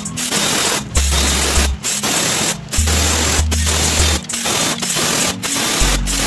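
Pneumatic air ratchet running in repeated bursts of about half a second to a second with short breaks between, loosening the camshaft cap bolts on the cylinder head.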